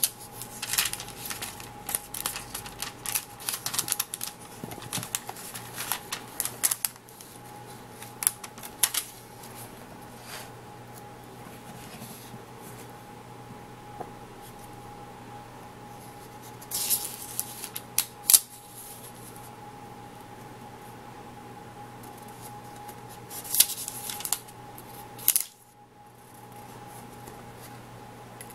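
Paper pages of a book being handled and turned: crisp rustles and crackles in clusters, busiest in the first several seconds and again about two-thirds of the way through, over a steady faint hum.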